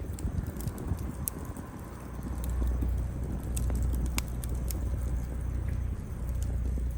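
Wood fire burning, crackling with scattered sharp pops over a low rumble that grows louder a couple of seconds in.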